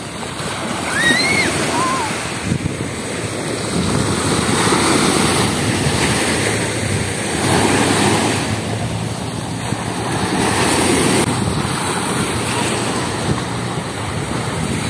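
Ocean surf washing onto a beach: a continuous rush of breaking waves that swells every few seconds.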